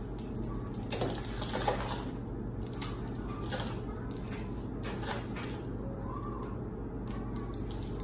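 Crinkling and light clicking of packaging being handled at a kitchen counter, a few sharper crackles about a second in and near the three-second mark, over a steady low hum.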